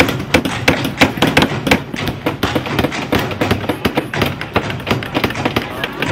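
Several hammers driving nails into wooden birdhouse boards at once: a dense, irregular clatter of sharp wooden knocks, overlapping with no steady rhythm.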